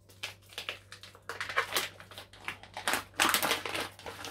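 A thin plastic crab-stick packet crinkling and crackling as it is torn open and handled. The crackling is irregular, loudest about a second and a half in and again about three seconds in.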